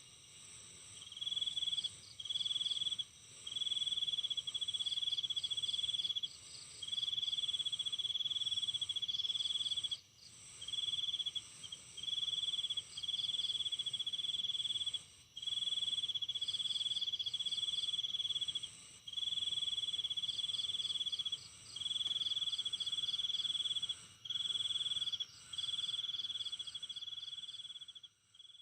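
Night insects trilling: a loud, high trill that switches on and off in stretches of one to four seconds, over a steadier, fainter and higher insect chorus.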